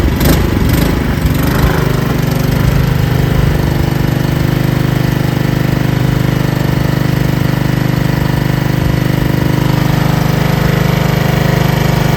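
Honda HRN216 push mower's single-cylinder GCV170 engine running at full throttle, just started from cold on the first pull on its auto choke, with the blade disengaged by the Roto-Stop blade stop. It runs unevenly for about the first two seconds, then settles into a steady run.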